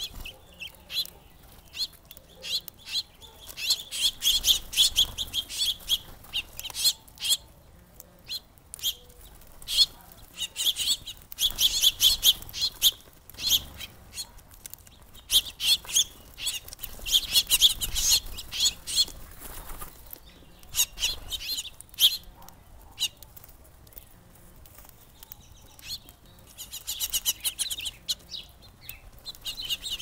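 House sparrows and house finches at a seed feeder chirping in repeated bursts of a few seconds each, with wing flaps among the chirps.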